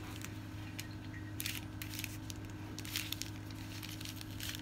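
Hands breaking apart and separating crumbly white chunks on aluminium foil: scattered soft crinkles of the foil and crumbling crunches of the chunks, coming in small clusters, over a steady low hum.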